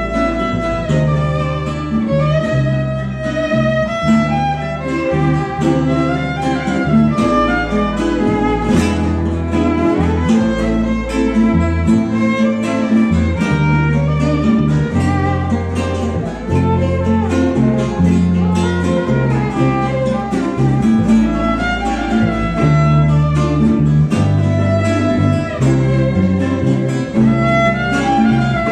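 A Venezuelan string ensemble plays an instrumental passage: a violin carries the melody over strummed cuatros, guitar and a bass line that changes note about every second.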